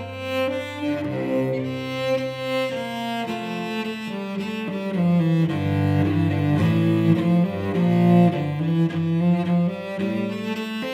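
A solo cello being bowed, playing a continuous line of changing notes, with a strong low note at the start.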